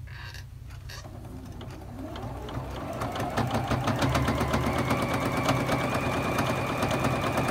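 Juki HZL-F600 domestic sewing machine free-motion quilting. The motor starts slowly about two seconds in and rises in pitch to a steady fast run, with the needle stitching in a rapid, even rhythm under a high whine.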